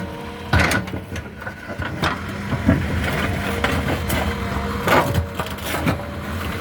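JCB 3DX Plus Stage 5 backhoe loader at work: its diesel engine runs steadily while several sharp knocks and crunches come from the bucket working through soil and stones.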